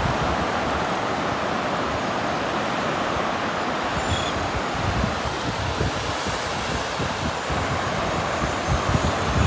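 Surf washing steadily on a beach, with wind buffeting the microphone in irregular low gusts, more of them near the end.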